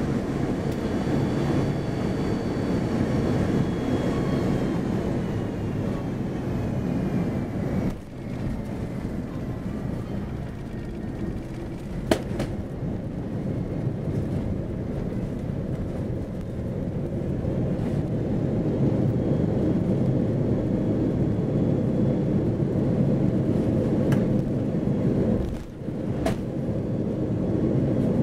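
Cabin noise of an Airbus A330-300 landing and rolling out on a wet runway: a steady deep rumble from the engines and rolling. A high engine whine falls in pitch over the first ten seconds or so as the engines spool down, and a single sharp knock comes about twelve seconds in.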